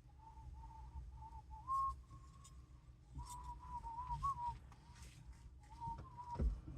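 A person whistling a tune to himself, a single clear note stepping up and down in pitch, with a few light clicks of parts being handled.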